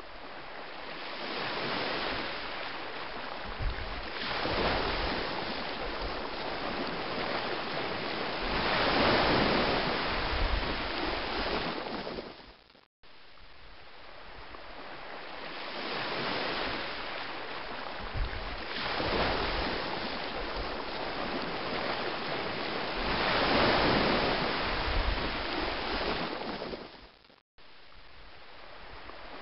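Rushing, surf-like water noise that swells into long surges and eases off again. It cuts out abruptly twice for a moment, then starts again with the same rise and fall.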